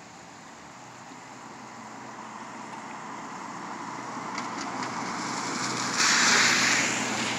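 A vehicle approaching on a wet road: tyre hiss over a low steady engine hum, growing louder over several seconds, then suddenly much louder about six seconds in.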